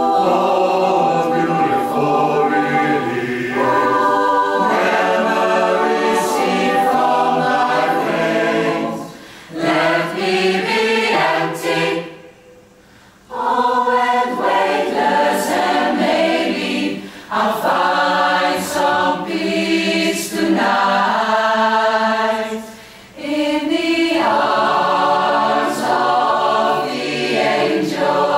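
Mixed choir of men's and women's voices singing in harmony, a cappella, in phrases separated by short breaks, with one fuller pause about twelve seconds in.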